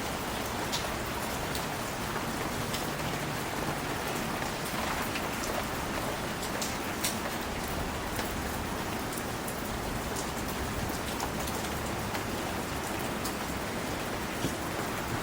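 Steady rain, an even hiss dotted throughout with the sharper taps of single drops landing nearby.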